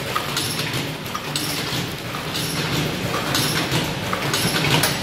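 Auger filling and sachet packaging machine running, with a steady hum and a clattering cycle about once a second as it fills and seals each packet.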